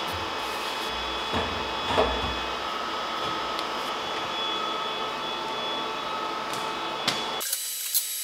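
Steady whirr of a welder's powered-air respirator blower fan, with a couple of light metal knocks about one and two seconds in. The whirr cuts off suddenly about seven seconds in, leaving a few light clicks.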